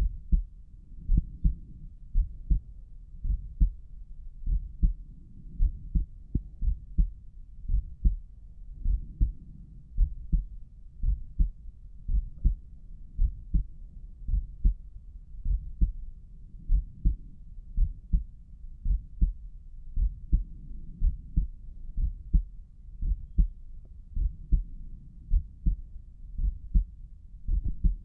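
Human heart sounds heard through a stethoscope chest piece at Erb's point: a steady lub-dub rhythm of paired low thumps, about one beat a second, with nothing in the higher range.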